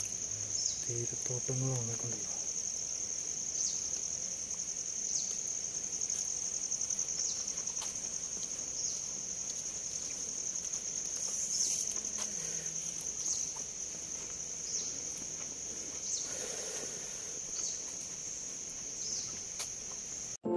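A steady, high-pitched insect trill, a fine rapid pulsing. A faint voice speaks in the first two seconds.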